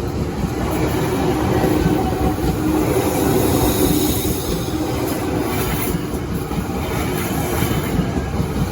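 Train passing close by: a steady, loud rumble of wheels on the rails with a faint held whine over it.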